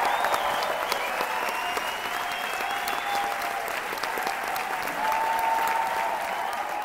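Crowd applauding, a dense steady patter of clapping.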